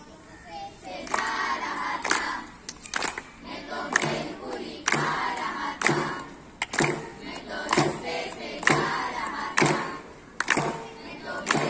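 A group of voices singing in unison to a drum struck about once a second.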